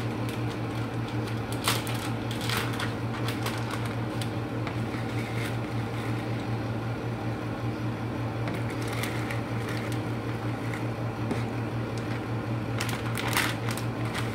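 A steady low electric hum, like a motor or fan running, with a few short clicks and rustles about two seconds in and again near the end.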